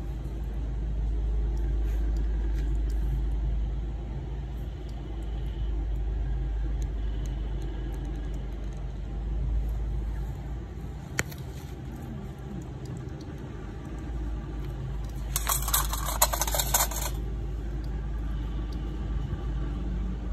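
Steady low rumble of street traffic, with faint scattered clicks and a loud hissing burst about a second and a half long near the end.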